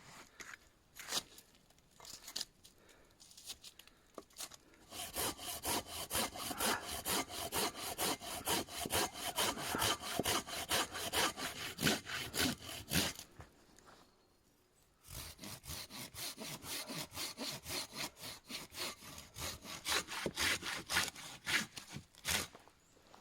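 Hand saw cutting through wood in quick, even back-and-forth strokes. It runs in two long bursts with a brief pause between them.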